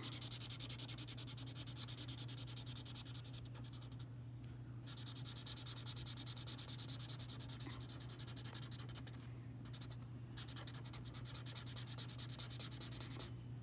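Felt-tip marker scratching and rubbing on paper in quick coloring strokes, stopping briefly twice, about four and ten seconds in.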